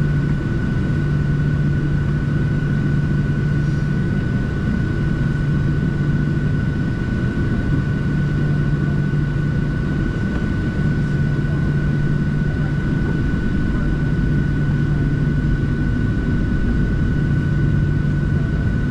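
Cabin noise inside a Boeing 737-700 airliner: the CFM56 jet engines make a steady drone with a thin, steady whine above it. A low hum swells and fades every few seconds.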